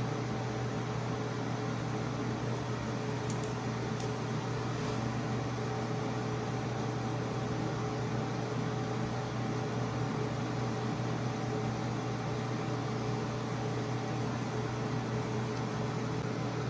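A fan running steadily, a continuous whir with a low hum and a few faint steady tones above it. A few faint ticks about three to four seconds in.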